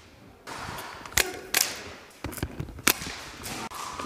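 Airsoft guns firing single shots: about five sharp cracks at uneven intervals.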